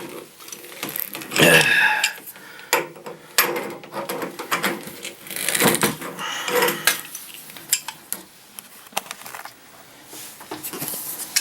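Metal tools clinking, knocking and scraping as a water heater's pressure relief valve is worked loose and unthreaded from its fitting. The sounds come in irregular clicks, with a few longer scrapes.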